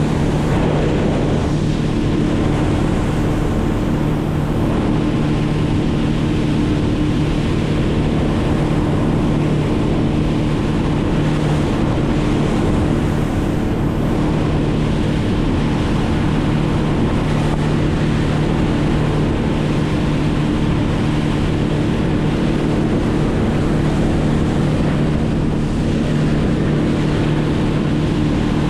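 An engine running at a constant speed, a steady drone that holds the same pitch throughout.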